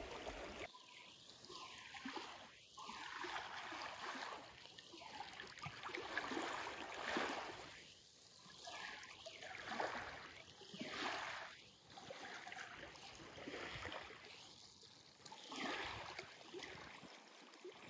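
Small waves lapping against a rocky lakeshore, the wash swelling and easing every two to three seconds.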